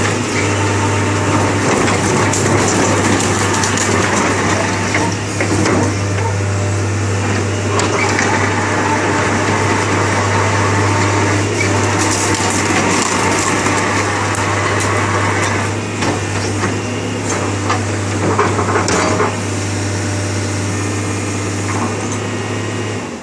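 Hitachi UH055-7 hydraulic excavator running, its diesel engine holding a steady low drone, with frequent clanks and knocks over it.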